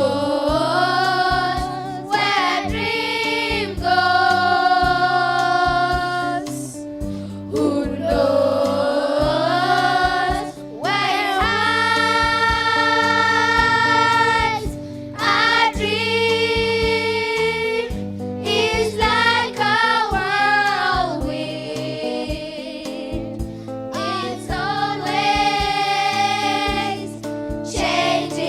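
A slow song sung by a group of voices, with long held notes and short breaks between phrases, over steady instrumental accompaniment.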